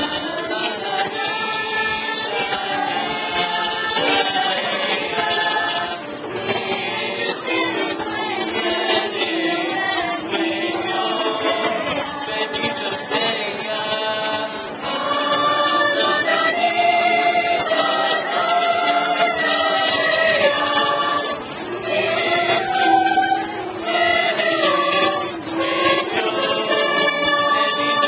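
Youth choir of boys and girls singing together, held notes moving up and down in phrases.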